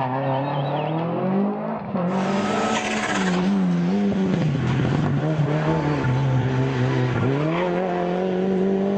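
Rally car engine revving hard, its pitch climbing and dropping again and again through gear changes, over tyre and skidding noise. The sound changes abruptly about two seconds in.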